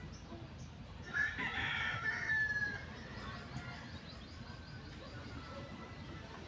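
A rooster crows once, about a second in: a loud call lasting about a second and a half that ends on a held, slightly falling note.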